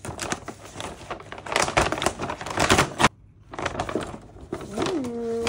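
Takeaway food packaging being handled: crinkling and crackling of bags and plastic containers with clicks. It cuts off sharply about three seconds in, then resumes. Near the end a voice sounds a short rising note.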